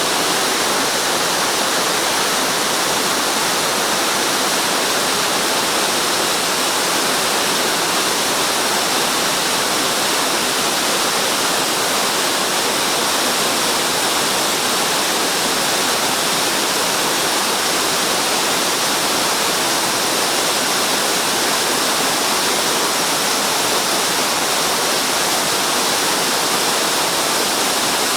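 Waterfall: a loud, steady rush of falling and splashing water that does not change throughout.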